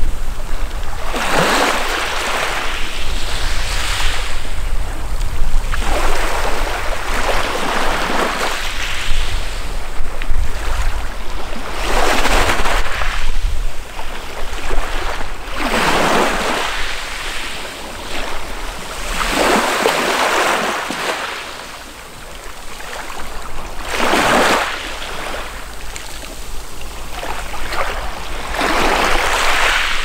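Small sea waves breaking on a pebble shore and washing back, one swelling surge of surf every three to four seconds.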